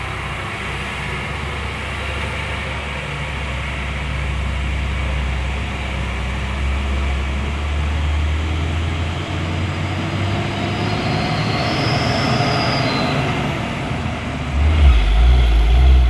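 Heavy diesel truck engine labouring at low speed up a steep climb, a deep steady drone, with a brief high whistle about twelve seconds in. A second engine comes in louder and deeper near the end.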